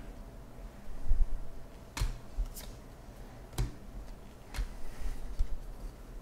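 Baseball trading cards being flipped through by hand, each card sliding off the stack with a sharp flick, about five in all. Dull low thumps, the loudest about a second in, come from the hands and cards knocking against the table or microphone.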